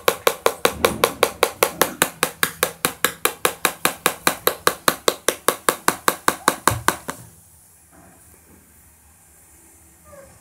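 Rapid, even knocking, about six sharp strikes a second, which stops suddenly about seven seconds in. A few faint, short, high squeaks from the Saint Bernard puppies follow near the end.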